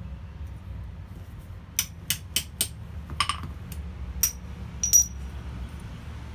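Light, sharp metal-on-metal taps and clinks of small steel pieces against a steel block, about ten irregular strikes over three seconds starting about two seconds in, the loudest near the end, over a steady low hum.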